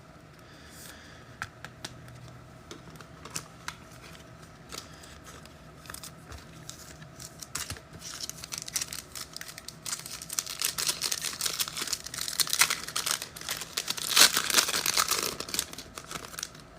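A foil trading-card pack being torn open and crinkled. Light clicks of handling come first, then the tearing and crinkling gets louder from about eight seconds in.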